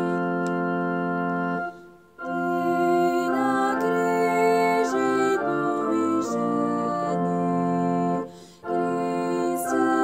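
Organ playing slow music in held chords, phrase by phrase, with a brief break between phrases about two seconds in and again about eight seconds in.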